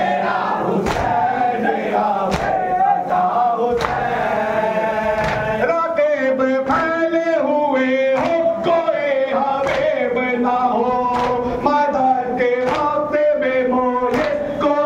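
A group of men chanting a Shia noha lament in unison behind a lead reciter, with regular sharp slaps of hands striking chests (matam) keeping the beat.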